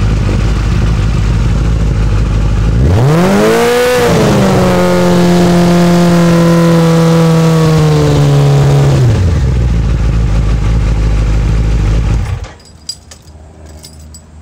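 Motorcycle engine idling, then revved about three seconds in and held at a raised speed by a homemade screw-type throttle lock. The revs sag slowly for about five seconds as vibration works the lock back toward neutral, then drop back to idle. The engine stops about twelve seconds in.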